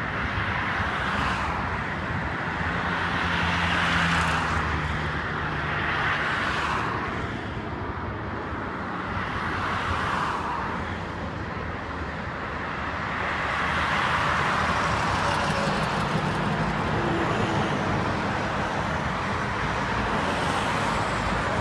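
Motorway traffic: cars, a van and a line of coaches driving past, the tyre and engine noise swelling and fading as each vehicle goes by. A falling tone comes in near the end.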